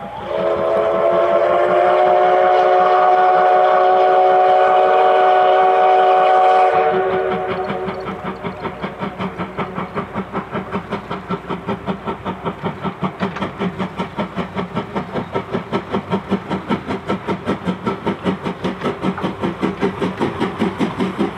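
Steam locomotive C11 325 sounds its chime whistle in one long chord of several notes lasting about seven seconds, which cuts off sharply. The locomotive then passes, its exhaust chuffing in a steady rhythm of about four to five beats a second that grows a little louder.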